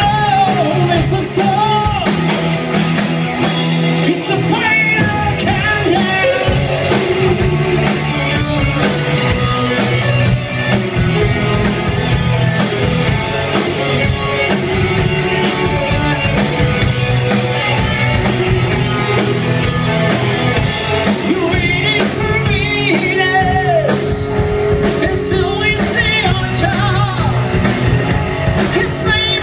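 Live rock band playing: a singer's vocals over electric guitars, bass and drum kit.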